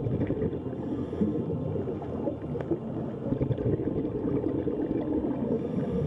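Underwater ambient noise as picked up by the filming camera: a dense, low, muffled water sound with scattered faint clicks.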